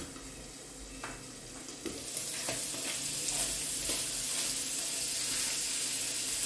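Diced bacon and a spoon of butter sizzling in a frying pan, muffled under a glass lid at first and louder once the lid comes off about two seconds in. A spatula stirs in the pan with a few light knocks.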